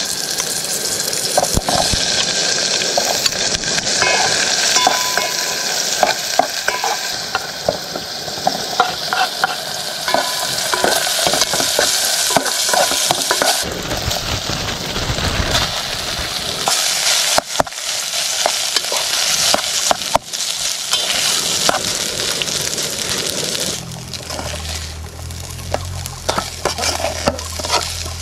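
Food frying in a pan with a steady sizzle, stirred with a utensil that scrapes and clicks against the pan again and again.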